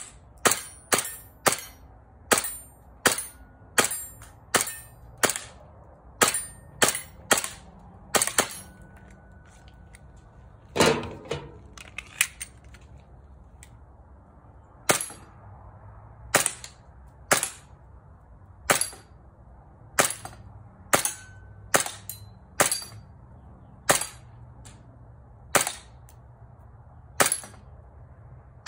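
Umarex Glock 19X CO2 BB pistol firing in quick strings of sharp pops, roughly one to two shots a second. There is a longer, heavier clatter about eleven seconds in, then a few seconds' pause before the firing resumes.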